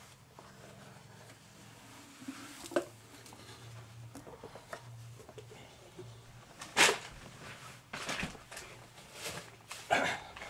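Knocks and rustles of someone moving close to the camera, a few sharp ones standing out, the loudest about seven seconds in and another near the end, over a faint low hum.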